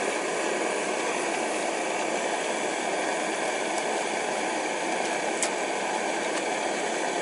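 Steady hiss of a small gas torch flame, with one light click about five and a half seconds in.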